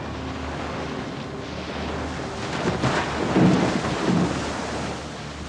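Rushing, churning water that builds up, then a loud crash of water and heavy splashing about three seconds in as a shark surges past a sailboat's hull, dying away near the end.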